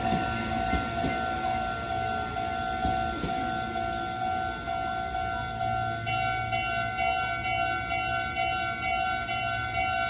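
Japanese level-crossing warning alarm ringing steadily on one pitch, while a Meitetsu train clatters away over the crossing in the first few seconds. About six seconds in, a second, higher alarm tone joins, pulsing about twice a second.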